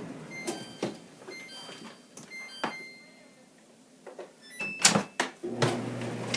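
Clothes dryer with a new belt and rollers: its low running hum cuts off at the start, a few sharp clicks and knocks follow with short thin high beeps, and the hum starts again about five and a half seconds in, with no squeaking.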